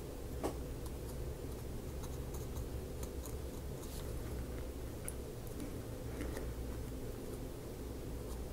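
Soft, faint scratching of a fine paintbrush's bristles working a light coat of paint onto a small wooden model part, with a small click about half a second in, over a steady low room hum.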